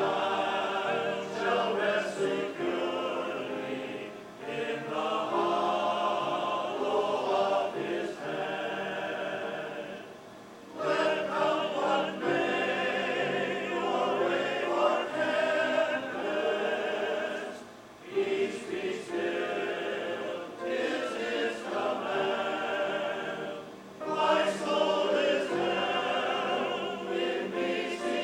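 A choir singing in sustained phrases, with brief pauses about ten, eighteen and twenty-four seconds in.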